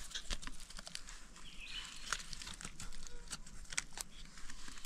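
Scattered light crackles and snaps of hands picking wild log mushrooms from a fallen log among dry leaf litter, with a faint short chirp about a second and a half in.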